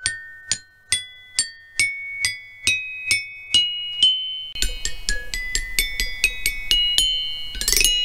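Instrumental outro music: single sustained notes struck about twice a second, climbing in pitch step by step. About halfway through, faster notes and a low bass join in, and a quick run of high notes comes near the end.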